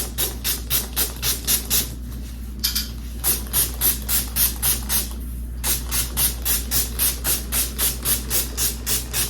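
Fine-mist heat protectant spray bottle pumped rapidly, a quick string of short hissing sprays about four or five a second, in three runs with brief pauses about two and five seconds in.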